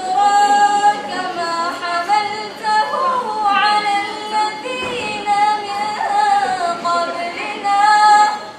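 A woman's voice reciting the Quran in melodic chant (tajwid), with long held notes and ornamented turns in phrases separated by short breaths.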